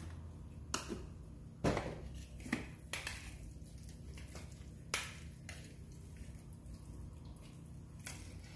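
A spoon clicking against a glass bowl now and then as raw prawns are tossed in olive oil and garlic seasoning; about half a dozen sharp, irregularly spaced clinks over soft mixing sounds.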